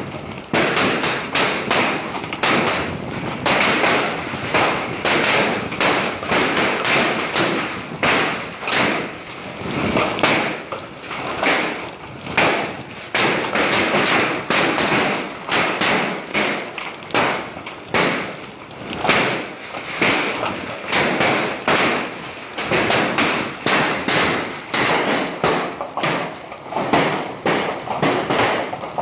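Heavy rain pouring down, a dense hiss broken by constant irregular thuds and taps of water striking a hard surface.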